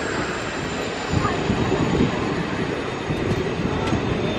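Running noise of a passenger train heard from aboard a moving coach: a steady rumble of wheels on the rails, broken by uneven knocks.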